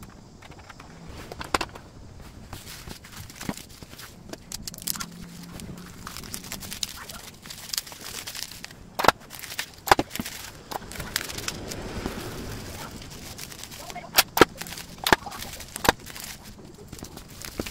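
Plastic bubble wrap rustling and crinkling as it is folded around small cards, with sharp crackling snaps, several close together near the middle and again near the end.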